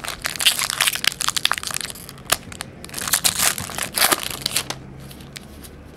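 Foil trading card pack wrapper crinkling as it is torn open by hand, in two bursts of crackling, dying away about five seconds in.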